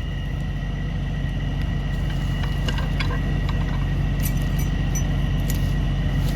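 Tow truck engine running steadily at idle, with a faint steady high whine alongside. A few light metallic clicks and clinks come through about halfway in.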